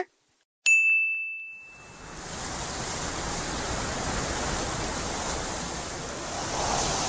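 A sound effect sample: one bright bell-like ding that dies away over about a second, then a steady rushing noise that swells slightly near the end.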